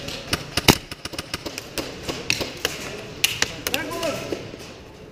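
Scattered airsoft gunfire: irregular sharp cracks, sometimes several a second, the loudest one under a second in, thinning out toward the end.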